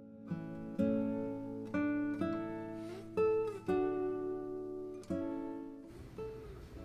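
Background music: an acoustic guitar playing a slow run of plucked notes and chords, each ringing out, stopping about six seconds in.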